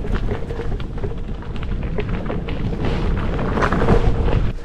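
Gravel bike's 650b Panaracer GravelKing tyres rolling over a rough gravel track, with a steady low rumble and many small crunches and knocks from stones and the bike. It gets louder about three and a half seconds in.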